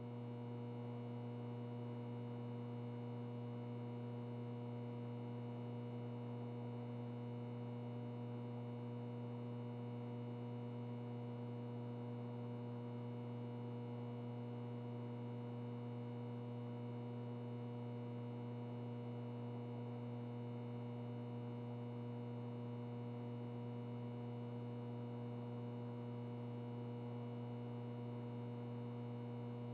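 Ventilation noise with a light electrical buzz: a steady, unchanging low hum with fainter higher tones stacked above it.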